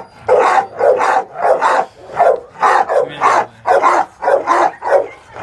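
A shelter dog barking over and over, about two loud barks a second.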